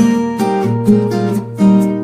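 Background music: acoustic guitar playing plucked and strummed notes over a held bass note.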